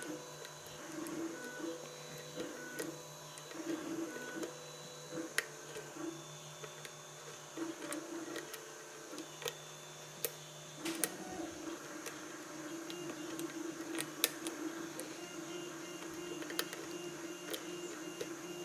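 Faint, irregular metallic clicks and ticks of a lock pick working the pins of a Corbin Russwin pin-tumbler challenge lock under tension, single-pin picking. A faint low hum runs underneath.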